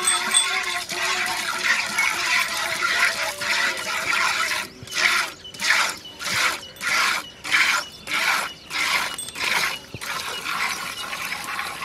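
Milk squirting from a cow's teats into a steel bucket as it is milked by hand: a regular run of hissing squirts, nearly two a second, clearest in the middle of the stretch, with a steadier hiss around them.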